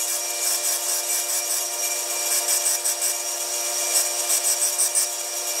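Bench belt sander running with a steady whine while the end of a stainless steel exhaust tube is ground against the belt, with a grinding hiss: a bevel being put on the tube end for a butt weld.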